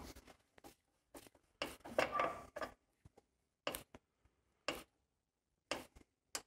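Faint clicks and scrapes of a flathead screwdriver turning a screw into a lawnmower engine's plastic air filter housing: a short cluster about two seconds in, then single clicks about once a second.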